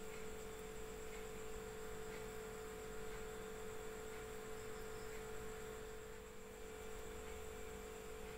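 Faint, steady electrical hum over a light hiss, the recording's background noise.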